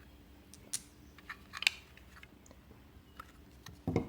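Small magnets being taken out of a puzzle box's drawer: a few scattered light clicks and taps as they knock together, the sharpest about a second and a half in, and a soft thump near the end.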